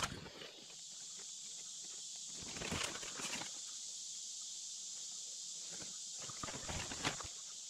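Rustling and crackling of leafy forest undergrowth as chanterelle mushrooms are cut and picked by hand, in a burst about three seconds in and another near the end with one sharp snap. A steady high-pitched evening insect chorus runs underneath.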